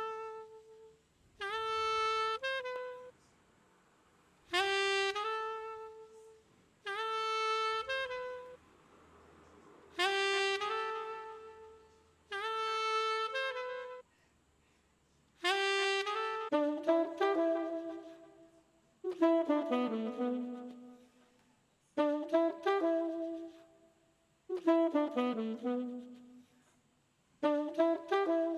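Sampled saxophone-like horn phrases from a neo soul sample pack: short held notes with pauses between them, then quicker runs of notes from about halfway through.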